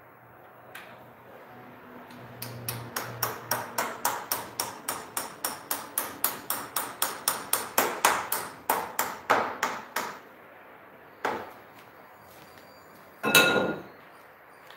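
Quick metallic hammer taps, about three or four a second for some eight seconds, knocking a metal fitting into a PVC window frame. Near the end comes a single louder metal clang that rings on briefly.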